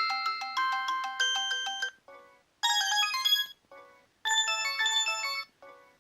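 Preloaded ringtones on a Samsung Galaxy J7 (J700) phone playing. A quick plinky melody stops about two seconds in. It gives way to a soft short phrase answered by a bright burst of chiming notes, and this pair is heard twice.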